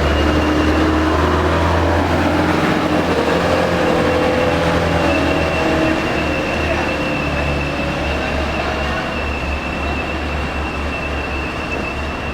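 Large diesel bus engine running close by with a steady low rumble, slowly fading a little in level over the last few seconds.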